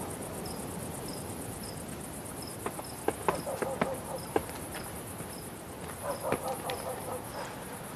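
Crickets chirping: a steady high trill with a short chirp repeating about twice a second. A few scattered sharp clicks and knocks come in about midway and again near the end.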